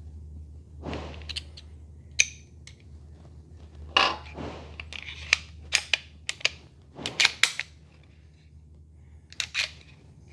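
Sig P365 XMacro pistol being reassembled by hand: a string of sharp, irregular metallic clicks and snaps with a few brief sliding scrapes as the barrel, recoil spring and slide are fitted back onto the frame.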